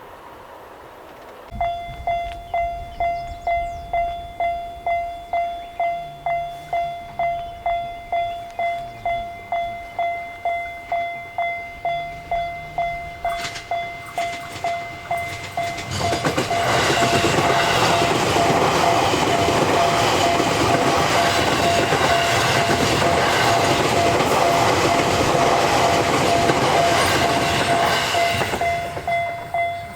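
Japanese railroad crossing warning bell starts about two seconds in, a repeating 'kan-kan' clang about twice a second. Just past halfway a JR Sobu Line train runs over the crossing, its rumble and wheel clatter loud for about twelve seconds with the bell still ringing underneath. The bell rings on alone after the train has passed.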